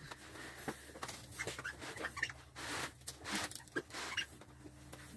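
Dog playing tug with a rope toy on a couch: faint, scattered thumps, scuffles and clicks as it jumps and pulls.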